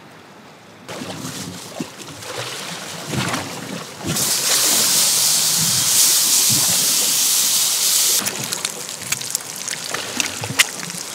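Wild pork bacon hitting a hot frying pan about four seconds in and sizzling loudly for about four seconds. The sizzle then settles into a crackle of spitting fat.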